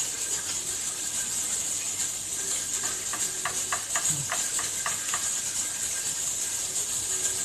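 Steady high hiss, with a run of light clicks and taps about three to five seconds in.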